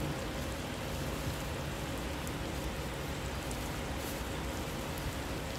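Food sizzling steadily in a hot cast iron pan, an even hiss with a low hum underneath.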